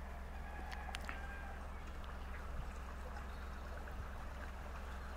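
Narrowboat engine ticking over with a steady low hum as the boat sits in the lock. A couple of faint high chirps come about a second in.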